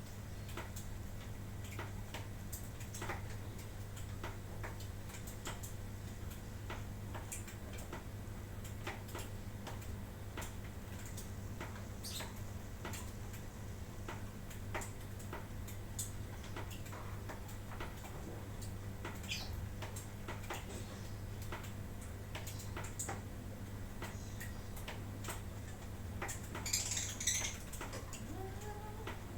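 Irregular light ticks and clicks over a steady low hum. Near the end, a lovebird gives a brief burst of high chirps.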